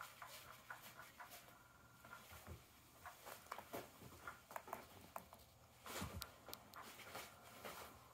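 Quiet, scattered light ticks and rustles of kittens moving about and playing, with a louder rustle about six seconds in.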